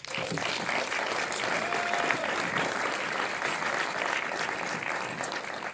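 Audience applauding, starting suddenly and keeping up steadily, easing off slightly near the end.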